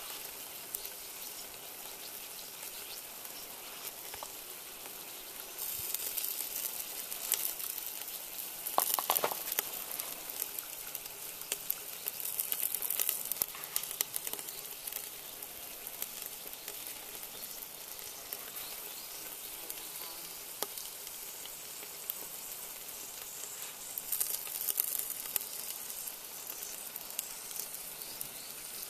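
Beef ribs sizzling on a grill over charcoal briquettes in a cast-iron camp oven while barbecue sauce is brushed on. A steady hiss flares up into louder crackling a few times.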